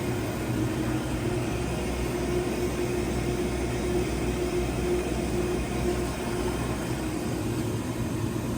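Makino Duo 43 wire EDM running under power: a steady machine hum with a held mid-low tone and a low rumble underneath.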